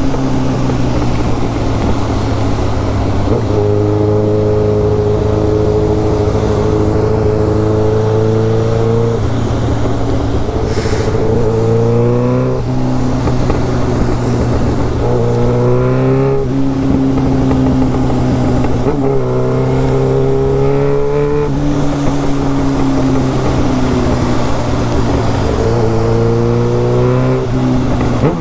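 Yamaha XJ6's 600 cc inline-four engine, breathing through an open exhaust with no silencer, running under way. Its pitch climbs about five times under acceleration, and each climb drops off sharply at a gear change or when the throttle closes.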